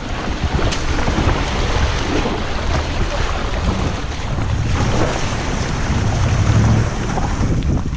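Range Rover Sport crawling through a muddy, puddled trail: a low engine rumble with its tyres churning and splashing through mud and water, heard from a microphone on the vehicle's side with wind buffeting it. The rumble swells near the end.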